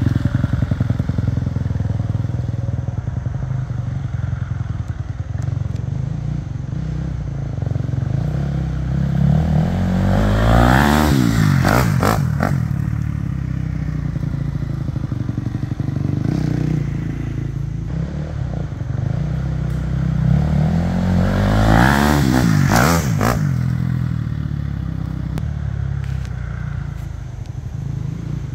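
2015 Husqvarna FC250 dirt bike's four-stroke single-cylinder engine running as it is ridden. It grows louder and sweeps in pitch as it passes close by twice, about eleven and twenty-two seconds in.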